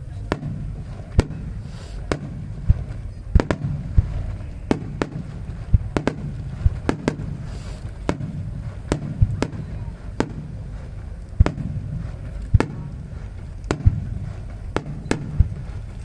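Aerial firework shells bursting in an irregular rapid series, a sharp bang about once or twice a second, over a steady low rumble.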